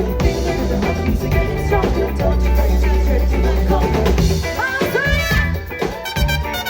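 A live Latin pop band playing, with drum kit and bass to the fore. A low bass note is held for about two seconds in the middle, and pitched lines slide upward near the end.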